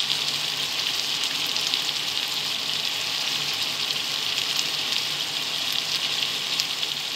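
Chicken drumsticks and sliced onions sizzling in a hot metal pot: a steady frying hiss with faint crackles.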